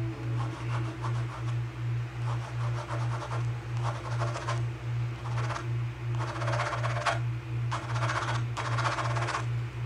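Scratch-off lottery tickets being scratched in about eight short bursts of scratching, one after another, over a low hum that pulses evenly.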